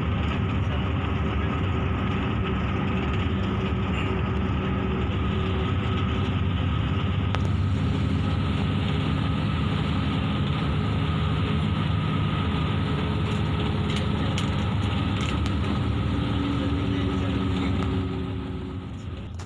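Coach bus engine and road noise heard inside the driver's cab while cruising: a steady drone with a few engine tones that shift in pitch about eight seconds in and again around sixteen seconds, easing off and getting quieter near the end.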